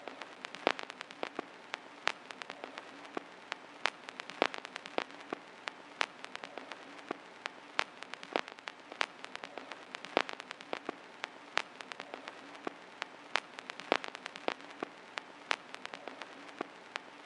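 Vinyl record surface noise: a steady hiss with irregular crackles and pops, several a second, some louder than the rest.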